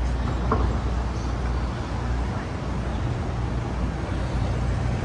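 Busy city street ambience: a steady low rumble of road traffic under a general street hiss.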